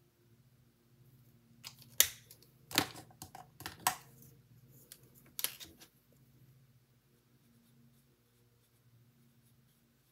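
Sharp plastic clicks and taps as Stampin' Blends alcohol markers are handled: caps pulled off and snapped on, and markers knocked against the table. About six clicks come in a cluster between roughly two and six seconds in, and the rest is quiet.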